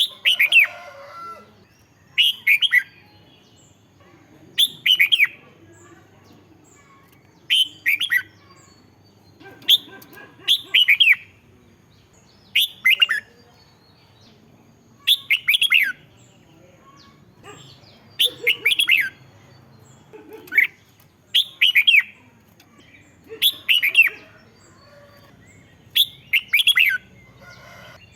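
Red-whiskered bulbul singing: short, loud whistled phrases of quickly falling notes, repeated about every two seconds.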